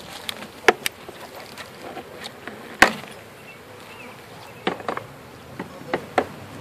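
Honeybees buzzing around a package of bees, broken by a dozen or so sharp knocks and clicks of a metal tool on the package's wooden box. The loudest knock comes about three seconds in, with a cluster of quicker clicks near the end.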